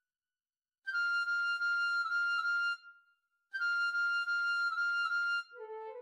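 Piccolo and flute duet imitating birdsong. A high note is held for about two seconds, breaks off briefly, then is held again, and lower flute notes come in near the end.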